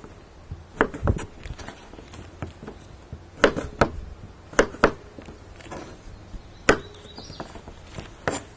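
Scattered sharp knocks and taps from handling zucchini pieces and utensils during food prep, about a dozen at uneven intervals, some in quick pairs.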